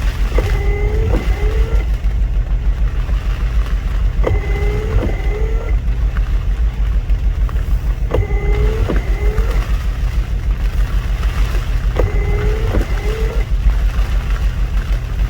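Car windshield wipers on an intermittent setting, making a sweep about every four seconds with a click and a short squeak of the blades on each pass, four times over. A steady low rumble from the vehicle and wind runs underneath.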